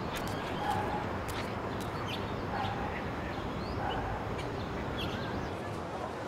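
Outdoor ambience: a steady background hiss with short bird calls and chirps scattered through it, and a few light clicks.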